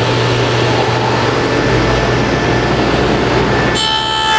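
Table saw spinning a half-inch dado stack, a loud steady running noise with a low hum. About four seconds in, a high whine joins as the stack begins cutting into the scrap test piece held in the box-joint jig.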